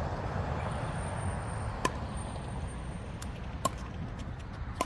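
Pickleball paddles striking a plastic pickleball during a rally: three sharp pops, the later two closer together, over a steady low rumble.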